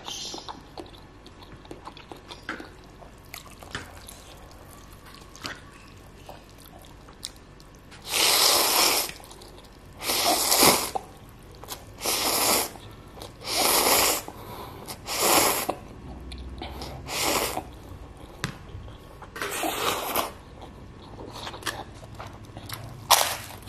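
Close-up eating sounds of fried instant noodles: soft chewing and small clicks, then about a third of the way in a run of about seven loud slurps of noodles, each about a second long and one to two seconds apart. A sharp crunch comes near the end.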